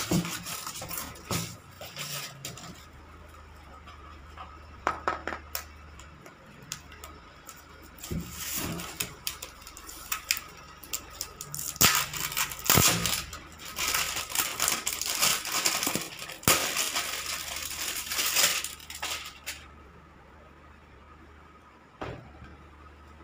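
Hands unwrapping an eyeshadow palette: plastic film and a foam wrapping pouch crinkling and rustling, with sharp crackles and taps. The handling is busiest from about 8 to 19 seconds in and quieter after, with one knock near the end.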